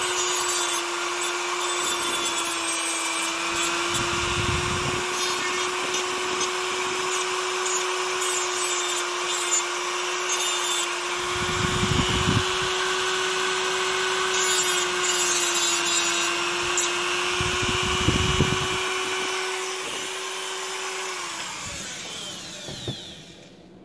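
Handheld rotary tool with a thin cut-off disc running at a steady high speed and grinding through a small metal part, a constant motor whine under a gritty hiss. Near the end it is switched off and spins down.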